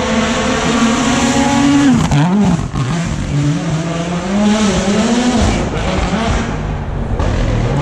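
A Rally1 rally car's engine at high revs, holding a steady high note for about two seconds, then dropping sharply and rising and falling in short surges as the driver lifts, brakes and works through the gears.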